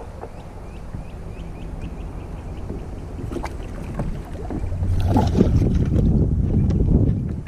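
Water sloshing against a kayak hull, with wind rumbling on the microphone. A fast, light ticking runs through the first three seconds, then from about five seconds in there are louder splashes and knocks.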